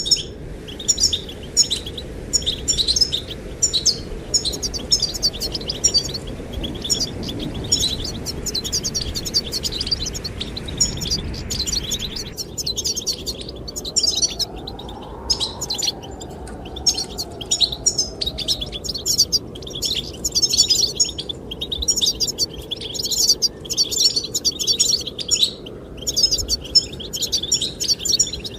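Goldfinches singing continuously, a dense run of rapid twittering and chirping notes, over a steady rush of wind.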